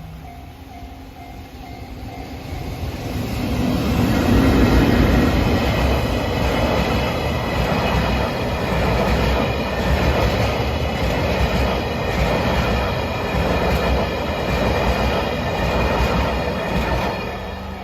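A JR Takasaki Line train passes over the level crossing. Its rumble builds from about two seconds in, stays loud for more than ten seconds, and drops away near the end. The crossing's warning bell rings faintly at the start and is heard again as the train fades.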